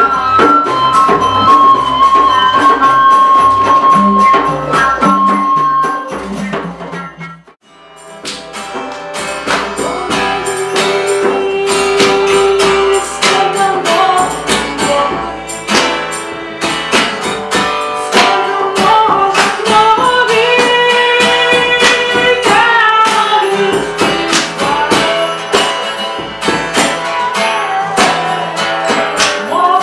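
Live ethnic folk music. A wooden flute holds a long note over bass and percussion, and fades out about seven seconds in. Then a woman sings to strummed acoustic guitar, with bass and a steady rhythm of percussion.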